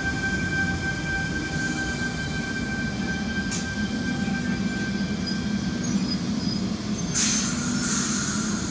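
Sydney Tangara electric suburban train standing at the platform: a steady electrical hum with a thin whine, then two sharp bursts of compressed-air hiss about seven and eight seconds in.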